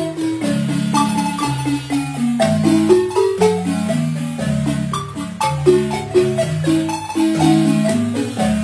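Wooden marimba played by three players with mallets, one instrument throughout: quick struck melody notes in the upper bars over long held bass notes that are rolled with rapid repeated strokes.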